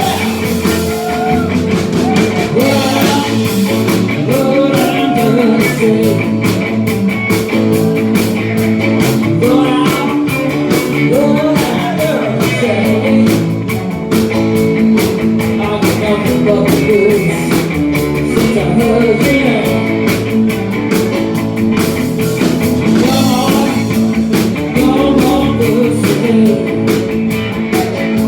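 Rock music with guitar, drums and a singing voice, playing loudly and steadily throughout.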